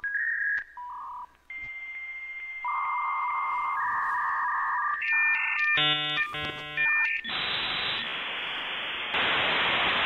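Dial-up modem connecting: a run of steady beeping tones, a quick warbling burst of handshake tones around six seconds in, then a loud rushing hiss of data noise.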